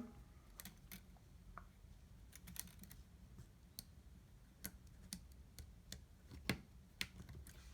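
Faint, scattered small clicks and taps of flex cable connectors being fitted and pressed into their sockets on an iPhone 6 logic board, a dozen or so at irregular intervals.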